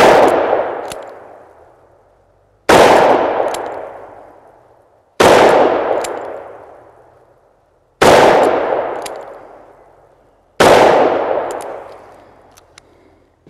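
Taurus Judge revolver firing five .410 buckshot shells, one shot about every two and a half seconds, each loud report trailing off in a long echo over about two seconds.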